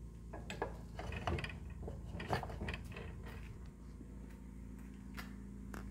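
Old hand-cranked cheese grater being turned by its crank, its gears clicking and rattling irregularly; the clicking dies away a little past halfway.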